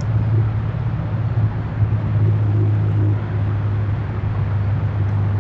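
A steady low hum with an even background hiss behind it.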